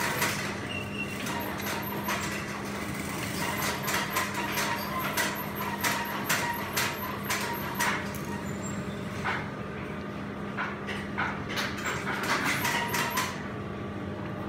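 Industrial Brother sewing machines in a workroom: a steady motor hum under short runs of stitching, with many clicks and knocks of the machines and the fabric being handled.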